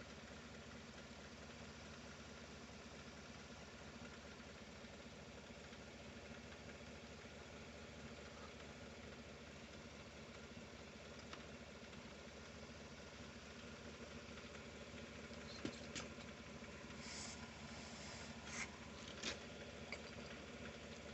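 Small 110cc single-cylinder ATV engine idling steadily with the choke off, its even firing pulse faint. A few short clicks and taps come in the last third.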